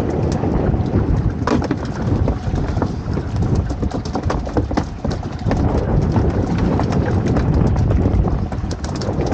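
Wind buffeting the microphone with a heavy, steady rumble, and scattered clicks and taps throughout.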